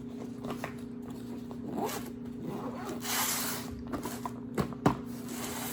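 Bags and food being packed by hand: a zipper pulled and items rustled and set down, with two sharp knocks near the end, over a steady low hum.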